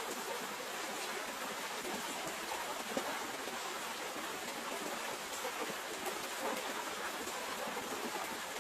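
Steady rain falling, an even hiss with faint irregular spatters of drops.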